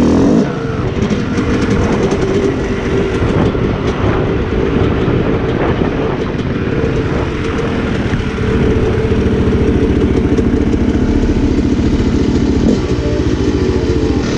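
Dirt bike engine running steadily under throttle, its rapid firing pulses even throughout, a little louder from about halfway through.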